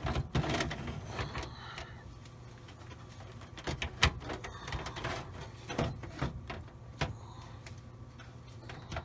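Scattered clicks, knocks and scrapes of a power supply unit being handled and fitted against a computer case, with one sharp knock about four seconds in.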